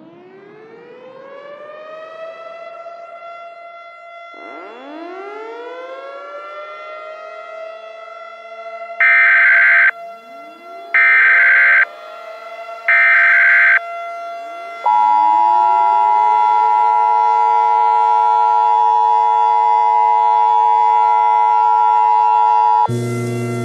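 Mock Emergency Alert System broadcast: several civil defense sirens wind up one after another and hold their pitch. Three short bursts of data tones, the EAS header, sound over them. From about two-thirds of the way in, the steady two-tone EAS attention signal holds, and a harsh low buzzing tone cuts in just before the end.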